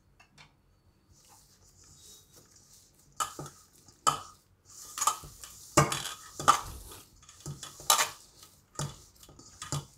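Hands kneading a dough of crushed Oreo biscuits and milk in a stainless steel bowl. It is faint at first, then from about three seconds in there are repeated squishes and scrapes with knocks against the metal bowl, about once or twice a second.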